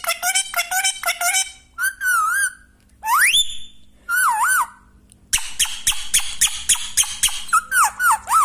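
Pet parrot calling and whistling: quick runs of short repeated calls, about five a second, broken by wavering whistled notes and one rising whistle a little past three seconds in.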